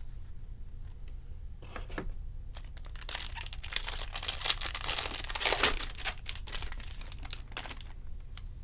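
Crinkling and tearing of a Topps trading card pack's foil wrapper, scattered crackles thickening into a dense stretch in the middle, then easing off.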